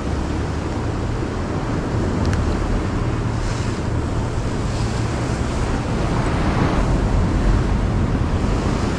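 Ocean surf breaking against the rocks below, mixed with wind buffeting the microphone: a steady rushing noise with a low rumble.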